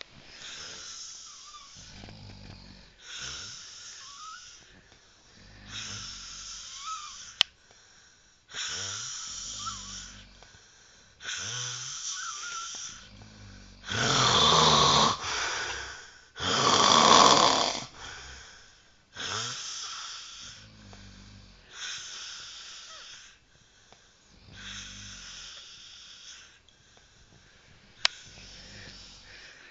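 Snoring in slow, regular breaths about every two and a half to three seconds, each a wheezy rasp. Two much louder snores come about halfway through, and there are two sharp clicks, one early and one near the end.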